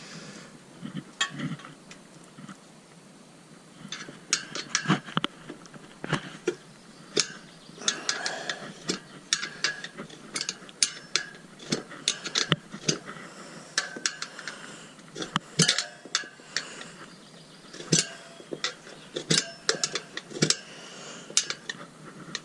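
Irregular metallic clinks, clicks and knocks, with some scraping, as a Tubliss insert is fitted into a motorcycle wheel rim by hand.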